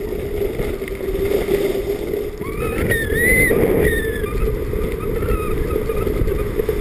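Steady rushing noise of skis sliding fast down a groomed piste, with wind on the microphone. About halfway through, a brief high wavering whine lasts a second or so.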